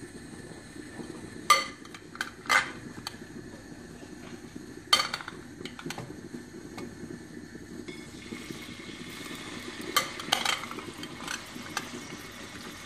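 Sharp clinks against a stainless steel pot as marinated chicken pieces are added from a glass bowl, and a hiss of the meat starting to sizzle in the hot oil from about eight seconds in.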